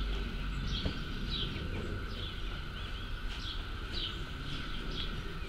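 A small bird chirping: short high calls repeated about twice a second over a steady low outdoor rumble.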